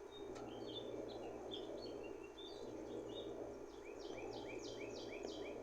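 Faint bird chirping: scattered short high chirps for the first few seconds, then a quick run of six repeated calls, about four a second, near the end, over a steady low background noise.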